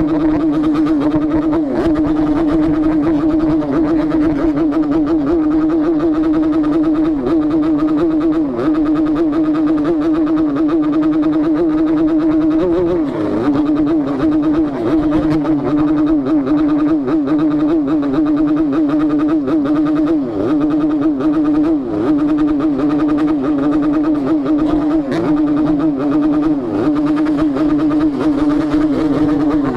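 Yamaha RX-King two-stroke single-cylinder motorcycle engine and exhaust running steadily, its pitch wavering slightly up and down with small throttle changes.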